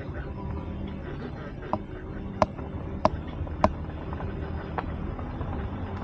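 Car driving on a sandy dirt track, picked up from a camera mounted on its roof: a steady low rumble of engine and tyres, broken by a few sharp knocks between about two and five seconds in.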